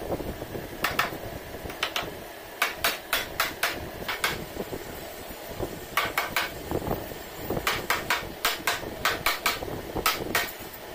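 Hammer striking the wooden door frame in quick runs of light, sharp taps, several a second, with short pauses between runs.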